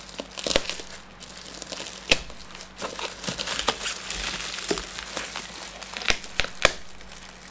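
Plastic bubble wrap crinkling and rustling as it is handled and cut with a precision hobby knife, with a few sharp clicks scattered through.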